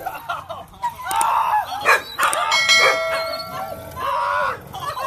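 Dogs whining and barking in short cries that bend up and down in pitch, over and over, as they wait eagerly at the pool edge to go after a toy.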